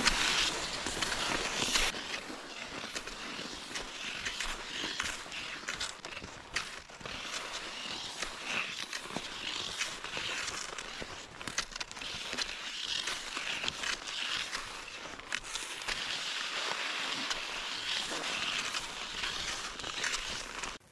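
Cross-country skis gliding and crunching over a packed snow-machine trail, a swishing stride about every second and a half with small scattered ticks.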